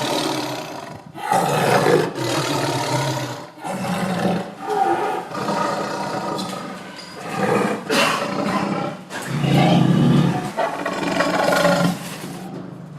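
Tiger roaring and growling in a string of loud, rough calls, one after another, with brief pauses between them.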